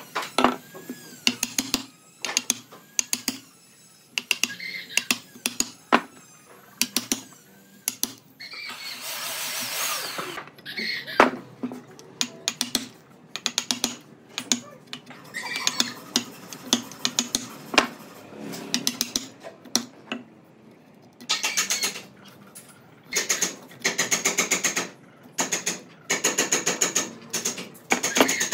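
Wooden mallet striking a steel chisel into a log, in quick runs of sharp knocks separated by short pauses. About nine seconds in there is a brief rushing hiss.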